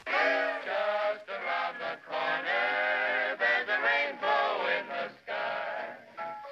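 A record playing on a horn gramophone: a man's voice singing a winding, wavering melody in phrases, starting abruptly.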